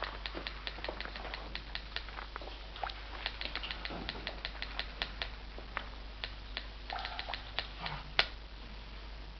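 Irregular run of short, sharp clicks, about three or four a second, with one louder click near the end, like a Morse telegraph key being tapped to send a message.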